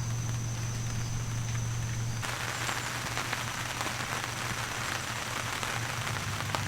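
Rain pattering steadily, coming in abruptly about two seconds in, over a steady low hum.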